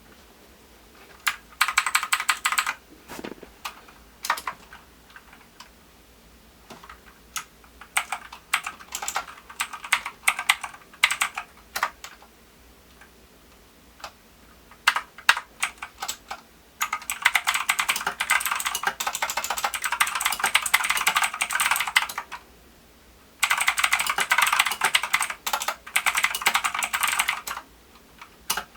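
Team Scorpion PEGASUS mechanical keyboard being typed on: scattered keystrokes and short runs of key clicks at first, then two long spells of fast, continuous typing in the second half.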